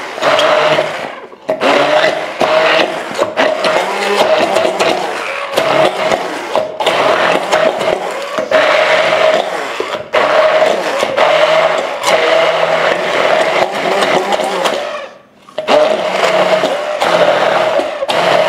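Electric stick blender running in a tall cup, puréeing banana, yogurt and peanut butter, with a steady motor hum. It cuts out briefly about a second and a half in, and again for a moment about three-quarters of the way through, then starts again.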